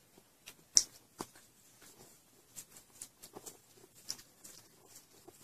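A cat licking and grooming a man's beard up close: irregular wet clicks and rasps of its tongue, the sharpest just under a second in.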